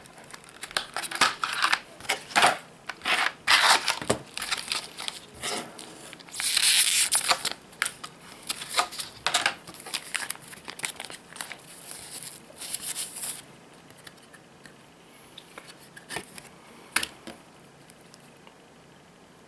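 A clear plastic blister box and the packaging of a tempered-glass screen protector being opened and handled, making irregular crinkling, rustling and clicking. A longer unbroken rustle comes about six and a half seconds in. After about thirteen seconds there is only faint handling and a single click.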